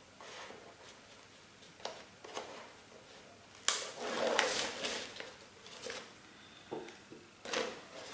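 Crepe paper rustling and crinkling in irregular bursts as hands wrap it around a paper cone and peel the backing off double-sided tape, loudest a few seconds in.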